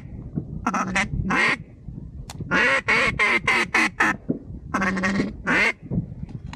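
Loud duck quacks in three runs: a few about a second in, a quick string of six or seven around the middle, and two or three more near the end.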